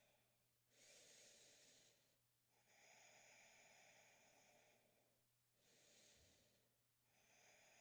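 Near silence with very faint, slow breathing: a few long breaths of soft airy hiss, with short pauses between them.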